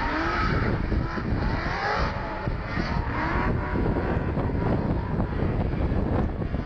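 Car engine running and revving, its pitch rising and falling over the first few seconds.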